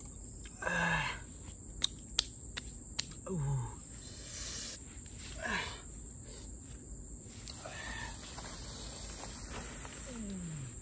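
A man's short wordless vocal sounds, four brief 'ooh'-like utterances each falling in pitch. Between them come a few sharp clicks and the rustle of a large banana leaf being handled, over a steady high insect drone.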